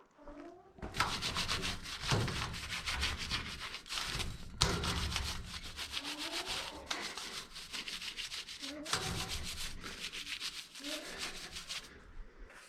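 Rapid back-and-forth scrubbing strokes during the cleaning of a barn's milk pipeline fittings, with a few short pauses, stopping about a second before the end.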